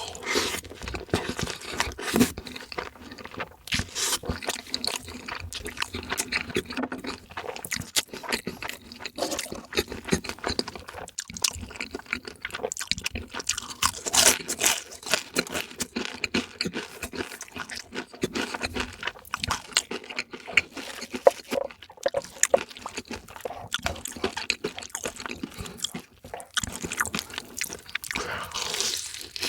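Close-miked chewing and crunching of crispy fried chicken: a dense, continuous run of crackles and bites.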